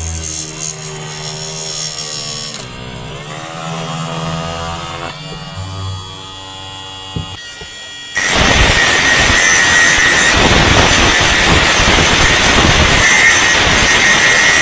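Background music, then about eight seconds in a homemade grinder driven by a 775 DC motor starts suddenly and runs loudly and steadily, a harsh noise with a high whine.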